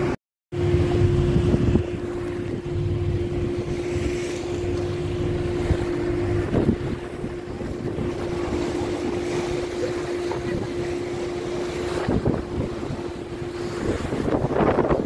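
Passenger motor boat under way: its engine drones with a steady hum, while water rushes past the hull and wind buffets the microphone, most heavily in the first couple of seconds.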